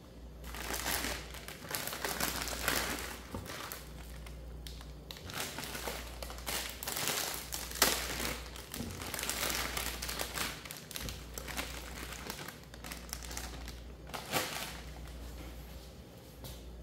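Plastic packaging being handled and crinkled, in irregular rustling bursts, over a low steady hum.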